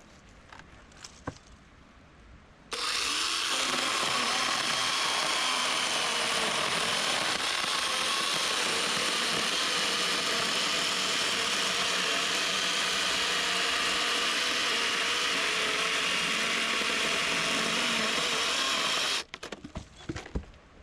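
Kebtec DLA-0017 electric chainsaw running at full speed for about sixteen seconds, starting suddenly a few seconds in and stopping suddenly near the end, after a few light clicks.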